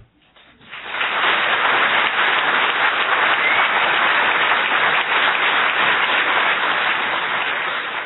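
Audience applauding steadily, starting about a second in.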